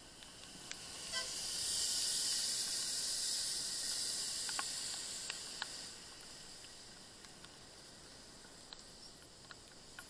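Tyres hissing on a wet road, the hiss swelling about a second in and fading away by about six seconds.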